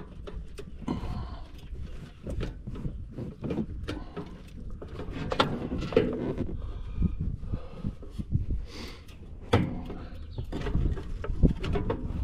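Irregular clicks, taps and small knocks of hands working wires and metal fittings behind a tractor's dash, over a low rumble.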